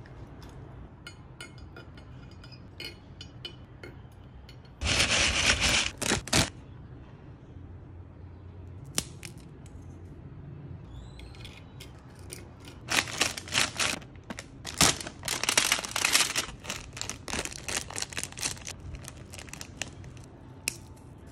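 Crisp Japanese seafood snacks and their plastic packets being handled by hand: a dense burst of crackling about five seconds in, a few faint clicks, then a long run of sharp crackles from about thirteen to nineteen seconds.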